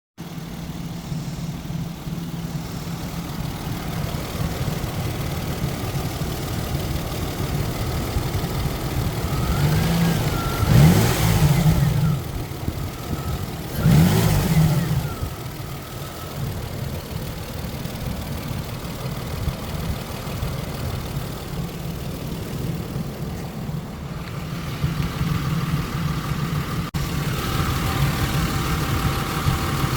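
1999 Isuzu VehiCROSS V6 engine idling steadily, revved briefly twice near the middle, running after its loose timing belt and collapsed tensioner were replaced to cure a knock.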